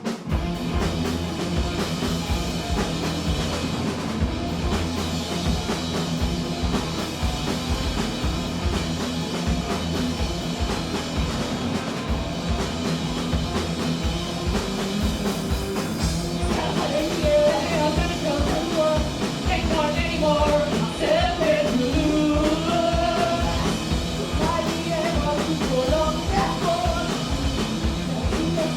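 Live punk rock band playing, with drums, electric guitar and bass. A woman's sung vocal comes in a little past halfway.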